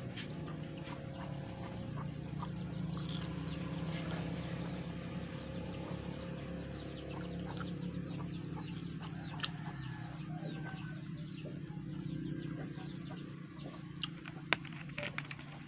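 Chickens clucking in the background over a steady low hum, with the close mouth sounds of chewing frozen strawberries.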